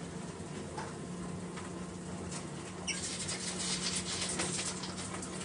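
Water splashing and spattering onto a hard surface, starting suddenly about three seconds in, over a low steady hum.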